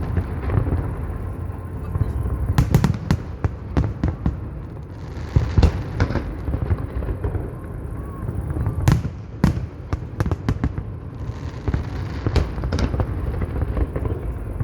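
Fireworks display going off: irregular sharp bangs and crackles, some in quick clusters, over a continuous low rumble.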